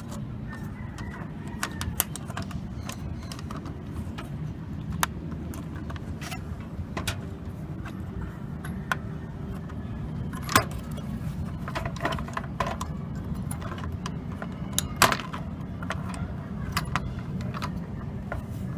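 Scattered small metallic clicks and taps from handling the CPU socket's retention lever and plate on a motherboard, with two louder clicks about ten and fifteen seconds in. A steady low hum runs underneath.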